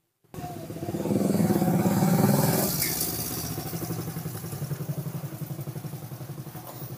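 A small engine running with a fast, even pulse. It starts suddenly, is loudest about two seconds in, and then slowly fades.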